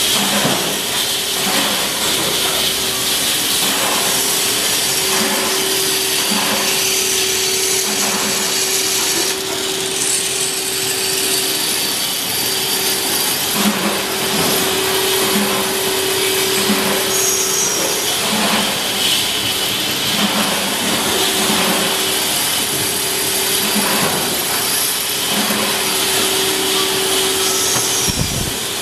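Factory machinery working brass rod, running steadily: a loud constant noise with a steady hum-like tone, a lower tone coming and going, and light knocks now and then.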